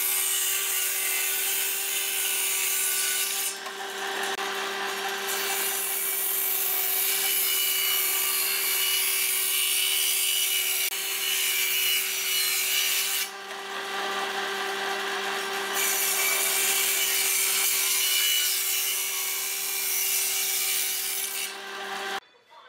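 Table saw ripping wooden boards along the fence: a steady motor whine under the harsh rasp of the blade cutting. The cutting noise eases twice for a couple of seconds while the blade spins free between passes, and everything cuts off suddenly just before the end.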